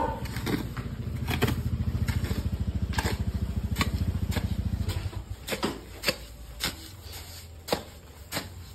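A hoe chopping and scraping through a pile of wet sand-cement mortar, with irregular strokes about once or twice a second. Under it a small engine runs with a low, fast pulse that fades out about five seconds in.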